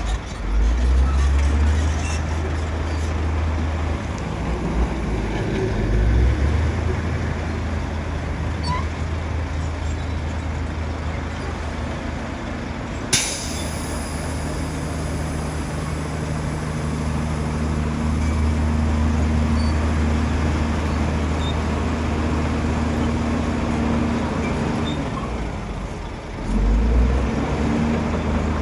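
Bulldozer's diesel engine running under load, its rumble swelling louder around the start and again near the end. A single sharp knock about halfway through.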